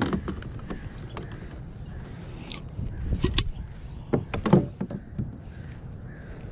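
Fishing tackle being handled: a run of small clicks, knocks and creaks, busiest from about three to four and a half seconds in, over a steady low rumble.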